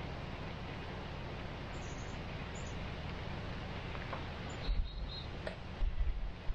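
A long-haired kitten chewing and tearing at a rotisserie chicken: faint clicks of eating over a steady outdoor hiss. Several low bumps against the microphone come about five to six seconds in, and a couple of faint high chirps about two seconds in.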